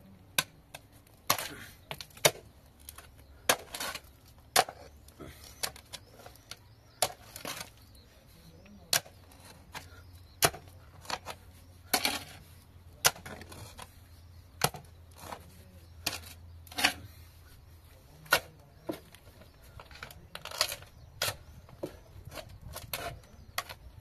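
Metal shovel blade driven into stony, rubble-filled soil: a series of sharp clinks and scrapes against rock, coming irregularly about once every one to two seconds.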